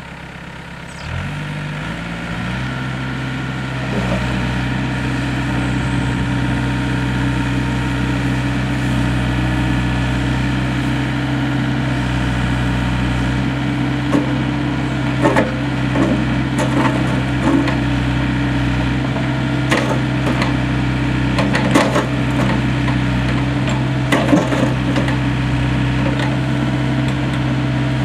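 GEHL 803 mini excavator's diesel engine running, its throttle brought up in steps over the first few seconds and then held steady. From about halfway, sharp knocks and clanks are heard over the engine.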